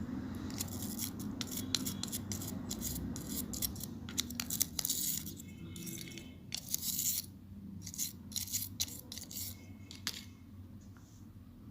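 Small cleaning brush scrubbing the tweezer discs of a Braun Silk-épil epilator head, making a run of short, dry, scratchy strokes at an irregular pace.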